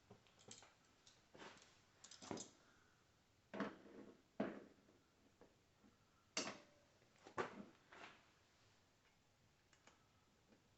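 Scattered clicks and knocks of hand tools and small metal parts being handled during mechanical work. There are about a dozen irregular clicks, the loudest clustered between about two and eight seconds in.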